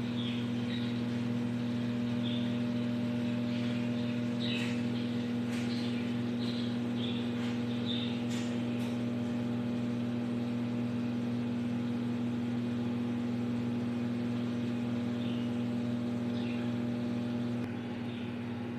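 Microwave oven running with a steady electrical hum, its low drone easing a little near the end.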